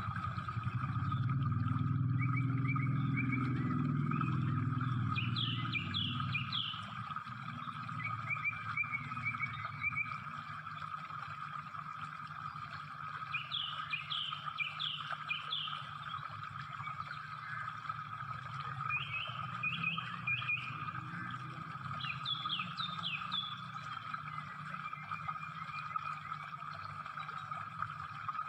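Outdoor ambience: birds chirping in short bursts every few seconds over a steady high hum. A low engine rumble fills the first few seconds and then fades.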